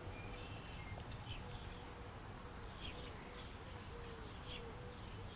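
A flying insect buzzing faintly, its wavering pitch coming and going in short stretches, with a few faint high chirps.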